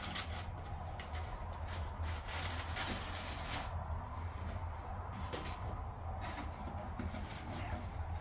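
Tissue paper rustling and cardboard gift boxes being handled, with bursts of crinkling, a quieter stretch midway, then more rustling near the end, over a steady low hum.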